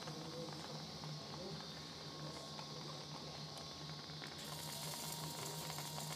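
Faint steady low hum and hiss of surgical equipment, with a high hiss that grows brighter about four seconds in.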